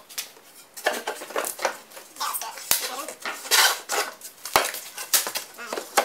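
Plywood hive panels knocking and clattering in irregular sharp knocks and scrapes as they are handled and fitted together into a box.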